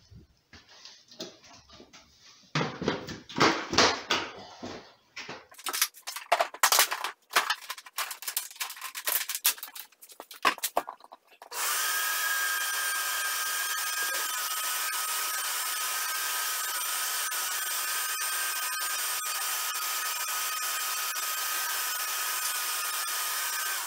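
Knocks and clatter of a plastic bucket lid and vacuum hose being handled and set in place. About halfway through a Ridgid shop vacuum switches on and runs steadily with a high whine, sucking fine floor dust through the hose into a homemade Thien-baffle bucket separator, and it shuts off at the very end.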